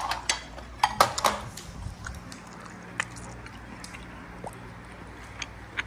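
Meal-table sounds: a cluster of sharp clicks and taps from tableware in the first second and a half, with soft wet squishing of food, then a few scattered ticks.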